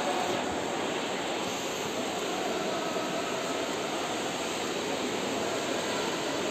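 Steady wash of indoor pool-hall noise, with water splashing from water polo players swimming.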